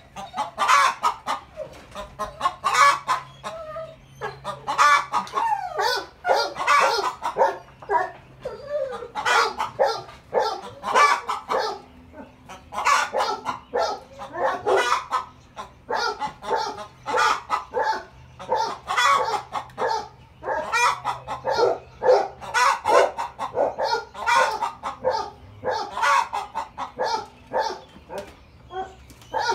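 Rhode Island Red hen cackling loudly, in quick runs of short repeated calls: an alarm cackle at barking dogs.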